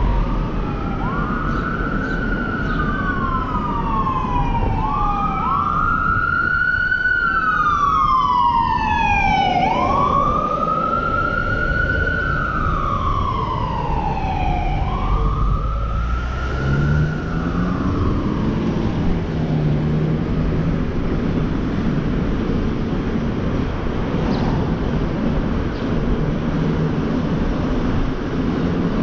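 Emergency-vehicle siren wailing up and down in pitch every few seconds over city traffic noise, fading out just past the middle. In the second half only the road noise remains, with a low steady hum.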